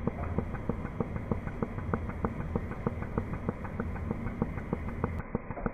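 DC pulse TIG welding arc on carbon steel pipe: a steady low hum with an even, sharp tick about five times a second as the current pulses.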